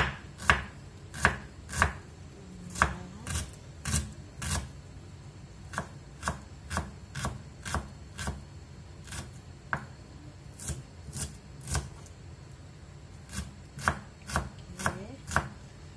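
Kitchen knife slicing shallots on a wooden cutting board: a string of sharp taps of the blade hitting the board, about two a second, with a short pause a few seconds before the end.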